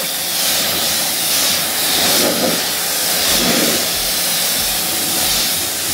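Pressure-washer nozzle spraying a fan of water onto a car door panel: a steady hiss of water striking the paint.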